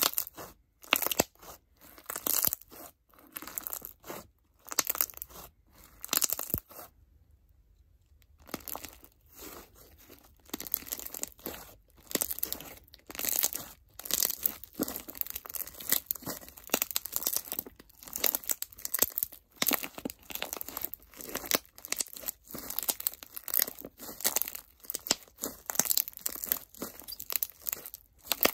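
Regina slime's Apple Tea clear crunch slime being squeezed and stretched by hand: a rapid, irregular run of crunching and crackling bursts as the crunchy clear base and trapped air give way. There is a short pause about seven seconds in, then the crunching resumes.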